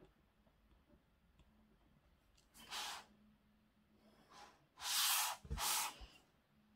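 A person's breath close to the microphone: three short hissy puffs of air, one about three seconds in and two back to back near the end.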